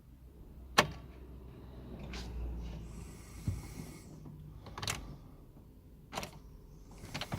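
Sharp clicks, about half a dozen spread over several seconds, as the ignition key of a 2003 Mercedes A160 petrol car is turned again and again. The starter does not crank and the engine does not catch: a no-start in which the warning lights stay on.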